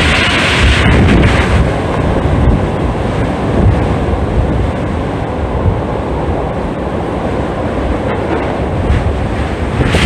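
Strong typhoon wind buffeting the microphone with a loud, heavy rumble. A rushing hiss from a gust fades about a second and a half in.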